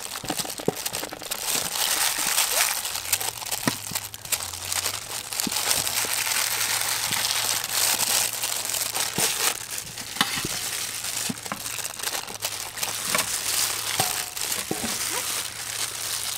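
Disposable plastic gloves crinkling as hands slice dragon fruit with kitchen knives over a steel bowl, with many small clicks and taps of knife and fruit. A faint low hum starts about three seconds in.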